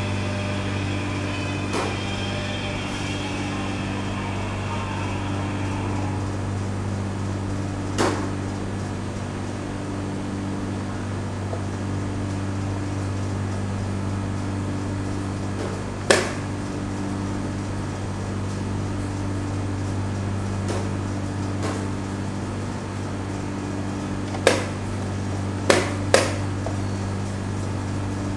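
Blitz chess moves: a handful of sharp clicks of wooden pieces set down on the board and the chess clock pressed, three of them close together near the end. Under them a steady low hum of room machinery, with faint music until about six seconds in.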